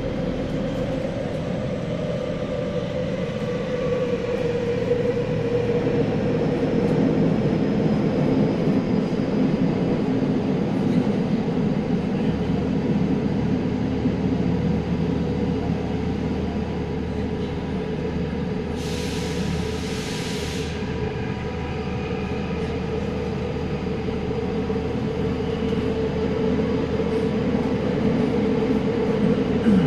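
Inside a Tokyo Metro 9000 series subway car running through a tunnel: a steady rumble of wheels and running gear with a humming tone that falls slightly in the first few seconds. A brief hiss about two-thirds of the way through.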